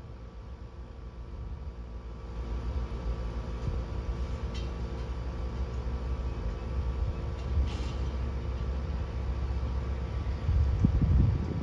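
A small airplane's engine drones steadily as it approaches low over the airfield, growing louder a couple of seconds in. A louder low rumble comes near the end.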